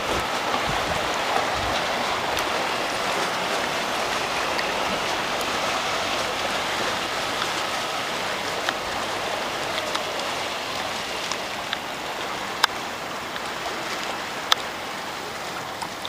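Steady wash of lake water lapping, growing slightly quieter, with a few sharp clicks, the two loudest near the end.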